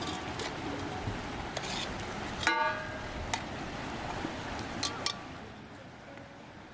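Steady rushing of a river, with a few light clinks of metal utensils and one short voiced call about two and a half seconds in; a little after five seconds the rushing falls away to a quieter background.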